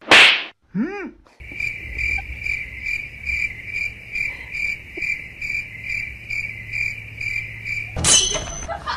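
Cricket chirping, a steady high pulsed trill repeating about two and a half times a second, starting abruptly and cutting off abruptly: the stock 'awkward silence' crickets sound effect. It follows a loud short burst of noise at the very start and a brief rising-then-falling tone about a second in.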